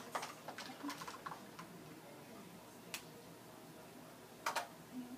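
Small plastic makeup items clicking and tapping as they are handled and rummaged through: a cluster of clicks in the first second or so, a single click about three seconds in, and a sharp double click near the end.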